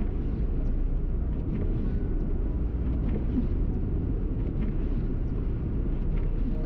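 A vehicle driving, with a steady low road and engine rumble.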